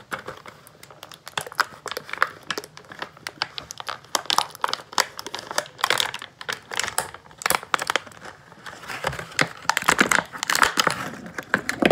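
Clear plastic blister packaging of an action figure crinkling and crackling as it is handled, in quick irregular crackles.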